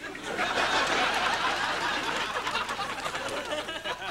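Studio audience laughing and applauding. It is a dense wash that swells just after the start and eases off toward the end.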